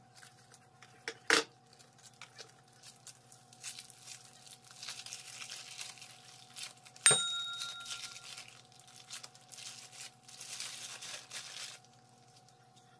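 Plastic bag crinkling and rustling as a bag of syrup is squeezed out into a steel basin, with a scissor snip about a second in. About seven seconds in comes a sharp metallic clink that rings briefly, the loudest sound here.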